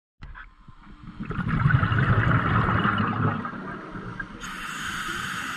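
Scuba diver's exhaled breath bubbling out of the regulator underwater, a loud gurgling rush of bubbles lasting about two seconds. Near the end a steadier hiss begins, as the next breath is drawn through the regulator.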